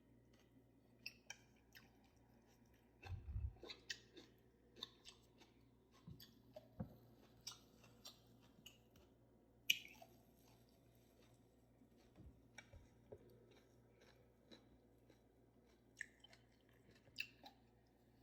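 Close-up open-mouthed chewing of food: irregular wet smacks and clicks of lips and tongue, with a sharper click about ten seconds in.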